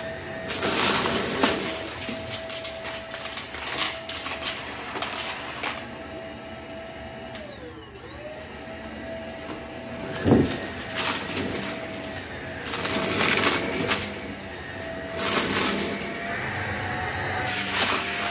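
Shark cordless stick vacuum running over crushed seashells. Its motor whine is steady, and hard shell fragments rattle up through it in repeated bursts. The whine sags in pitch about eight seconds in and then recovers, and there is a louder clunk about ten seconds in.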